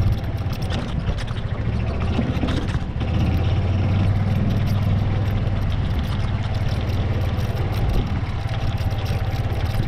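Small utility buggy's engine running at a steady low speed as it drives along a rough dirt track, with a steady low hum and scattered light knocks and rattles.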